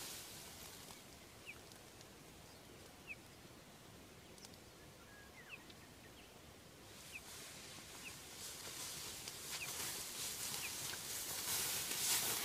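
A bird peeping somewhere in the field: short, high, slightly falling single peeps about once a second, on one note, which she takes for a small fledgling. From about seven seconds in, a rustling of tall grass grows louder.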